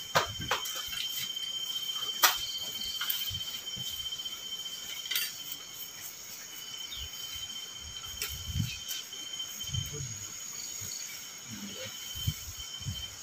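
Night insects trilling in a steady high tone, with a few sharp clicks and knocks; the loudest knock comes about two seconds in.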